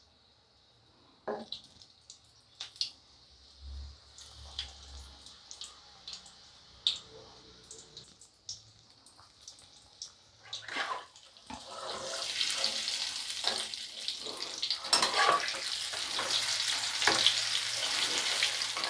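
Besan-battered cauliflower fritters deep-frying in mustard oil in a kadai. At first there are scattered pops and crackles. From about halfway it becomes a louder, steady sizzle as the fritters are turned over with a spatula.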